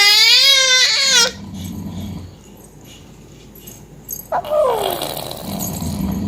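Five-month-old baby vocalizing: a loud, high, wavering squeal for about the first second, then low grunts, and about four seconds in a cry that slides down in pitch into a low growly grunt.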